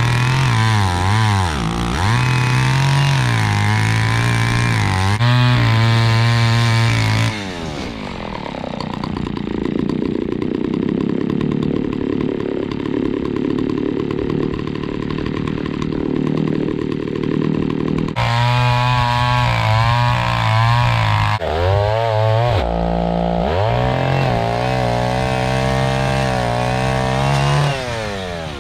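John Deere 70V two-stroke chainsaw revving up and down while cutting firewood. For about ten seconds in the middle it runs lower and duller, then picks up and revs again. The chain is dull and in need of sharpening.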